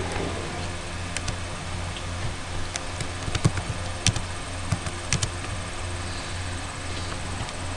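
Computer keyboard typing: scattered, irregular key clicks over a steady low hum.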